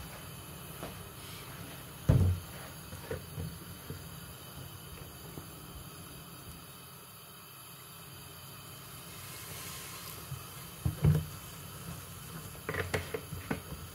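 Dull kitchen knocks over a low steady hum: one loud knock about two seconds in, a softer one near eleven seconds, and a quick run of light clicks and taps near the end.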